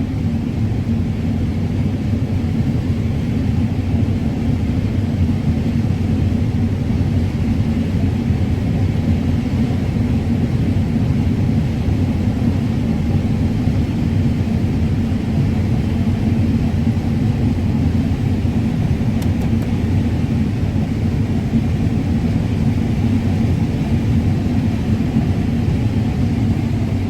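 Combine harvester running steadily while harvesting corn: an even, low engine rumble with a faint steady hum that does not change.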